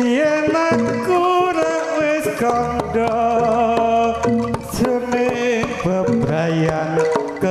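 Live Javanese jaranan accompaniment: kendang hand drums beating rapidly under a sustained, wavering melody line.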